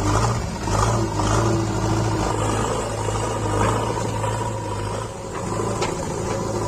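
Diesel engine of a JCB 3DX backhoe loader running steadily with a low, even hum.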